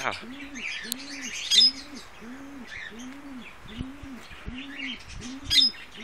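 A dove cooing in a steady series of about ten low coos, each rising and falling in pitch, a sound that is likened to a cow's moo. Small cage birds chirp faintly and higher up at the same time.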